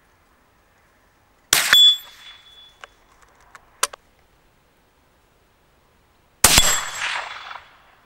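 Two shots on a hanging steel target plate, about five seconds apart. Each hit is a sharp crack followed by a metallic clang that rings and dies away over about a second.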